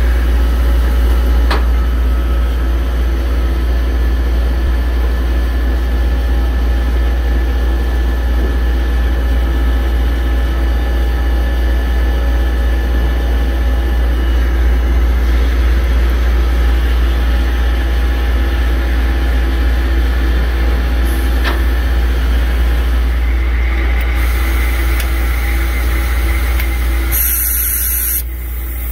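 Mitsubishi FA-20 CNC wire EDM machine running: a loud, steady low hum with steady machine tones over it. A hiss builds in the last few seconds.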